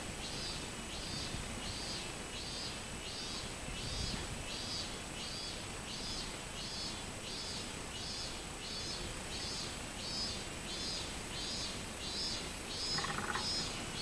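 Minmin-zemi cicada (Hyalessa maculaticollis) singing, its call phrases repeating about one and a half times a second.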